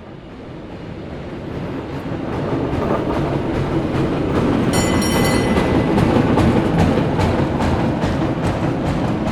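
Cable car running: a dense rattling rumble that swells over the first few seconds, then holds steady. A brief high squeal comes about five seconds in, and a run of sharp clicks near the end.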